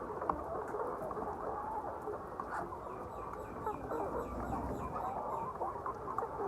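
A flock of laying hens clucking and calling all at once: a steady, dense chorus of many overlapping calls.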